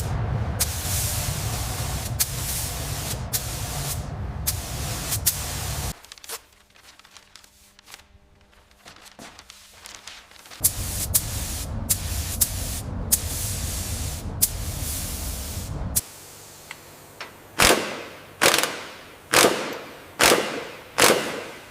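Steady hissing noise, dropping away about six seconds in and returning some four seconds later, followed near the end by a run of about seven sharp strikes with ringing tails, roughly one a second.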